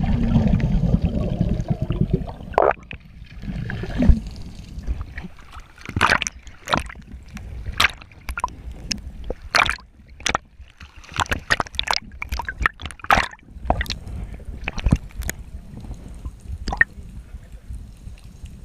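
Muffled underwater bubbling of scuba exhaust bubbles for the first couple of seconds, then irregular sharp splashes and sloshing of seawater against the GoPro's housing as it bobs at the surface.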